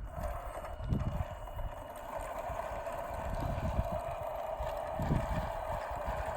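Steady whine from the drive motor and gearbox of a 3D-printed RC half-track as it drives, with wind rumbling on the microphone.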